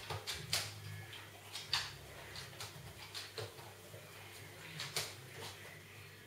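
A dog's claws clicking irregularly on a hard floor as it gets up and walks about, with a faint steady low hum underneath.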